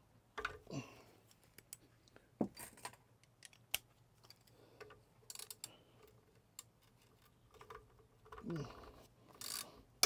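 Ratchet wrench with a short extension clicking and metal tools clinking against the engine block and brackets in scattered, irregular strokes, as bolts are worked loose on a Mercruiser 5.0 engine. A few of the clinks ring briefly.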